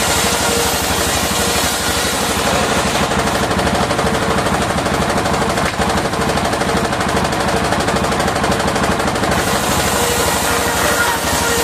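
Circular sawmill at work sawing waru (sea hibiscus) wood: a loud, rapid, even chatter of the drive and blade, with a steady whine coming up near the end.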